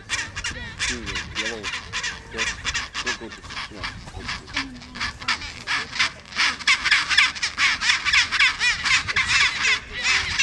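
Chinstrap penguins calling in a breeding colony: many overlapping, rapidly pulsing calls that grow louder over the last few seconds.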